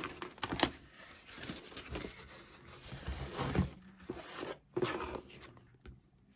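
Cardboard box and paper being handled: irregular rustling and scraping as a printed card is taken off the box, the box opened and a leaflet picked up, with a few louder scrapes. It stops abruptly near the end.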